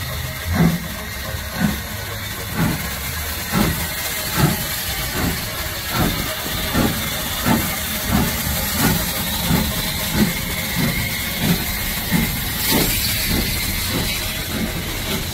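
Ex-Lancashire & Yorkshire Railway 0-6-0 steam locomotive 52322 chuffing at low speed over a steady hiss of steam. Its exhaust beats quicken from about one a second to nearly two a second as it gathers speed, then soften as it draws past close by.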